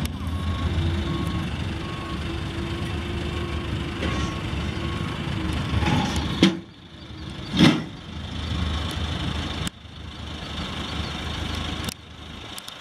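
Caterpillar backhoe loader's diesel engine running under load as it pulls a steam locomotive off a trailer, with its backup alarm beeping repeatedly through the first few seconds. Two short, loud noises about a second apart come near the middle.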